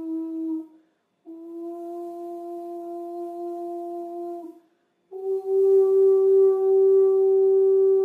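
Vibrating square metal Chladni plate sounding a steady pitched hum that changes frequency in steps. One tone cuts off just under a second in, a second tone holds for about three seconds, and after a short break a louder, slightly higher tone holds to the end. Each resonant frequency shakes the sand into a different standing-wave pattern.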